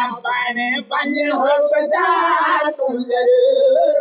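A man singing a devotional qasida refrain in a high, drawn-out voice, with long wavering notes and short breaks for breath.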